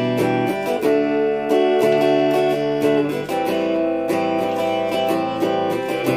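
Stratocaster-type electric guitar strumming chords in a steady rhythm, changing chords a few times.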